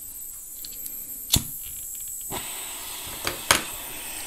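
Rothenberger 3-in-1 butane gas soldering iron burning with its open gas flame, a steady hiss that grows fuller about halfway through. A few sharp clicks come through it, twice loudly.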